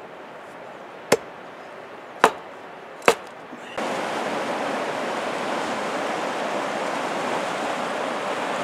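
Three sharp chopping strikes, about a second apart, as boards are split into kindling on a wooden chopping stump. Partway through, this gives way to the steady rush of river rapids.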